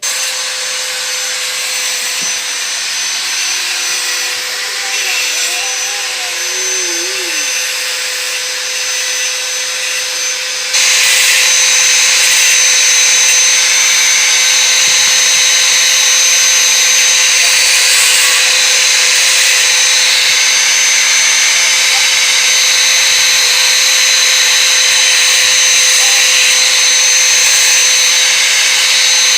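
Small electric power-tool motor running steadily with a constant whine. It gets suddenly louder about 11 seconds in and then holds steady.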